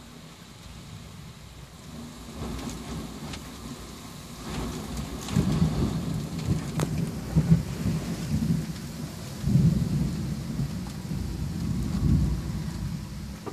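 Thunder from a desert storm, heard from inside a truck cab with rain falling. A low rumble swells about four seconds in and rolls on in waves until near the end, with scattered raindrops ticking on the cab.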